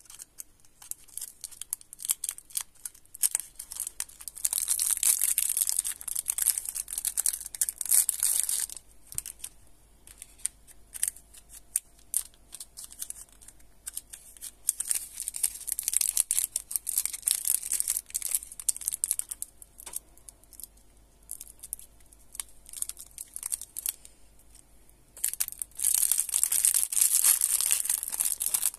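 Clear plastic lollipop wrappers crinkling and tearing as fingers unwrap them, in three louder spells of crisp rustling with quieter stretches of scattered clicks and taps in between.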